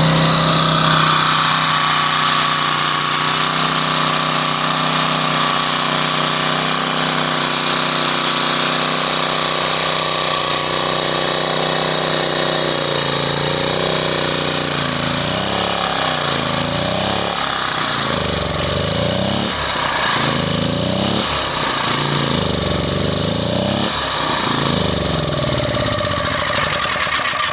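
Champion 1800/1400-watt portable generator's small engine running, steady at first, then from about halfway hunting up and down in speed every second or two. The surging is what the owner is certain comes from a clogged carburettor emulsion tube.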